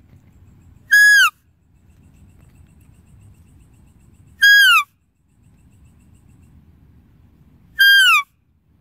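A deer's call, given three times about three and a half seconds apart: each a short, high-pitched cry that holds its pitch briefly and then slides down. A faint low rumble fills the gaps between calls.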